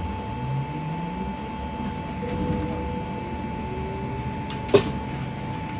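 Low rumble of a vehicle or street traffic with a faint steady hum, a rising engine note about half a second in, and a single sharp click near the end.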